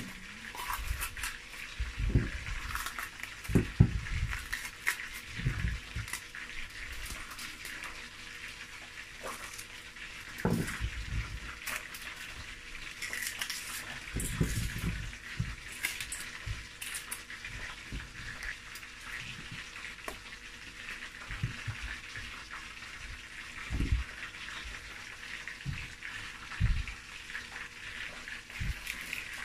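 Fish frying in a mix of palm and vegetable oil, a steady sizzle, under scattered soft thumps and rustles as hands tear apart red peppers and pull out the seeds on a stainless steel sink drainer.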